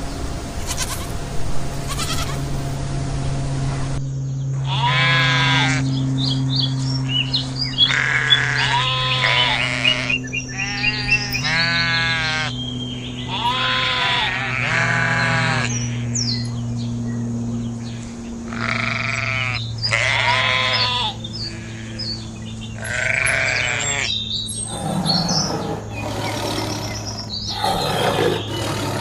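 Sheep or goat-like bleating: about ten separate quavering calls, each roughly a second long, over a steady low hum. In the last few seconds a noisier, scratchy sound takes over.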